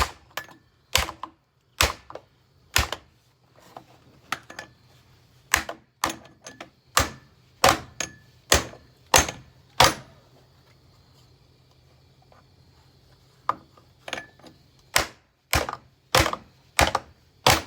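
Repeated hard blows on a bagged Oreck vacuum cleaner being wrecked: sharp knocks about one to two a second, pausing for a few seconds about two-thirds of the way through.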